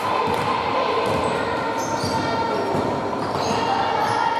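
Basketball game on an indoor hardwood-style court: the ball bouncing and sneakers squeaking in short high chirps on the floor, echoing in the sports hall.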